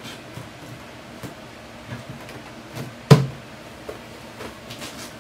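Corrugated plastic exhaust hose and plastic duct adapter being handled against a portable air conditioner's casing: light rustles and small clicks, with one sharp, loud plastic knock about three seconds in.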